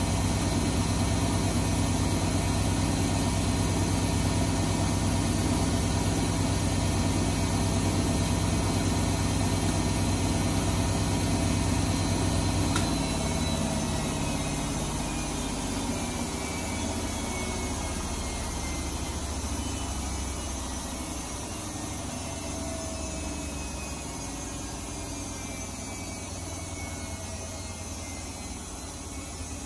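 Electra Electronic 1100 front-loading washing machine spinning at speed with a steady motor hum and whine. About thirteen seconds in the motor cuts out and the drum coasts down, its hum and whine sliding lower in pitch and fading: the end of the spin.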